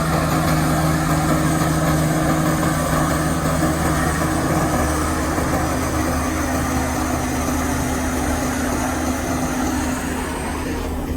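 Heavy diesel engines of construction machinery running steadily, with the engine note shifting about halfway through as one machine's hum fades and another's comes up.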